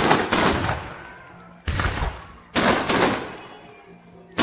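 Aerial firework shells bursting: a bang at the start, two more close together in the middle and another at the end, each dying away over about a second.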